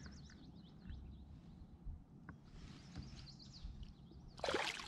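Small birds chirping in quick, high, repeated notes, with a short splash near the end as a smallmouth bass is let back into the lake.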